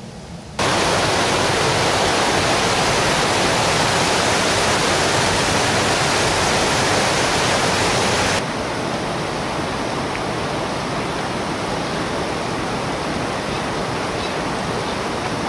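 Rushing water, a loud steady noise that starts abruptly about half a second in and drops to a lower level about eight seconds in.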